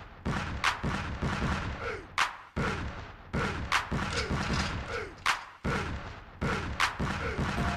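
Instrumental hip-hop beat with no vocals: a sharp snare-like hit about every second and a half over a steady low kick drum, with short falling synth tones between the hits.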